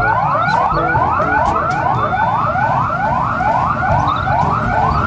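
Electronic police siren of a toy police car, a fast rising wail that repeats about four times a second.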